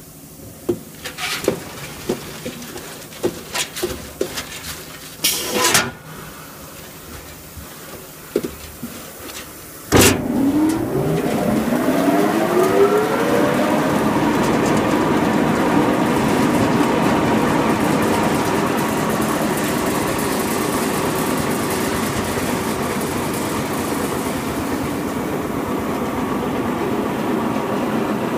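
Centrifugal de-oiling and de-watering machine, its basket loaded with pumpkin seed kernels, starting with a sharp clunk about a third of the way in. Its motor and spinner then spin up in a rising whine over about four seconds and settle into a steady, loud whirring drone. Before the start there are scattered knocks and a short clatter.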